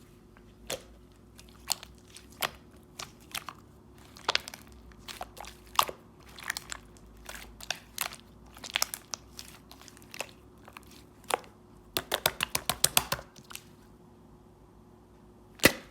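Small light-purple slime being squeezed and poked, giving sharp clicking and popping sounds, some single and some in quick runs. There is a dense run of pops a little after the middle and one loud pop near the end.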